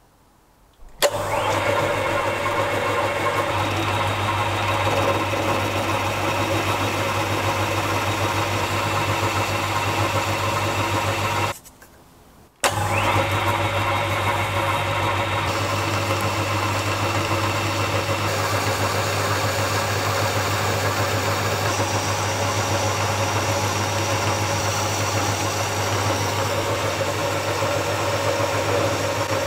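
A Halifax 524 metal lathe starting up and running. Its motor spins up with a rising whine about a second in and then runs with a steady hum. Just before halfway the sound breaks off abruptly and starts again with another rising whine.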